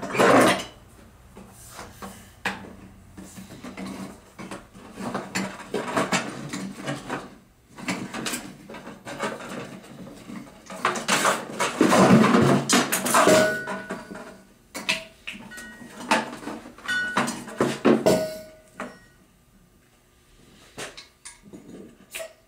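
Irregular clattering and knocking of tools and metal parts handled on a workbench, busiest about halfway through, with a few brief squeaks.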